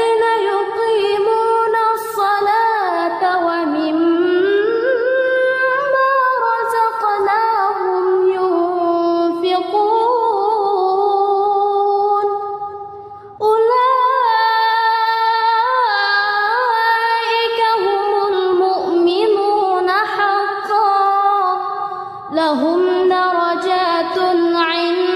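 A single high voice reciting the Quran in melodic, chanted tajweed style, holding long ornamented notes that glide up and down, with short pauses for breath about 13 and 22 seconds in.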